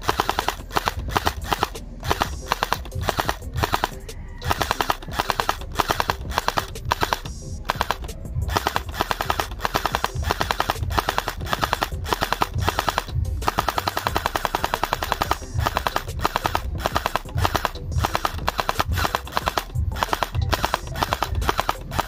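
AK-style gel blaster toy rifle firing in rapid bursts, a fast rattle of shots broken by short pauses.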